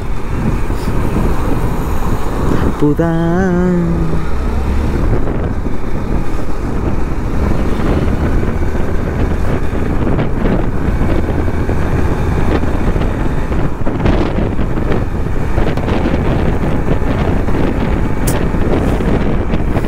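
Wind rushing over the microphone of a motorcycle ridden at speed, with the engine's steady low drone underneath.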